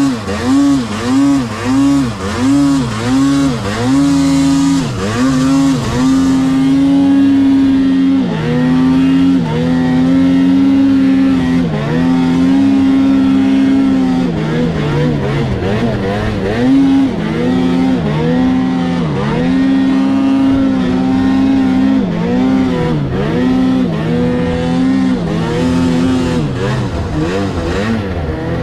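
Snowmobile engine running hard under throttle: quick repeated rev-ups and drops for the first few seconds, then long spells held at high revs broken by short dips as the throttle is eased and reapplied.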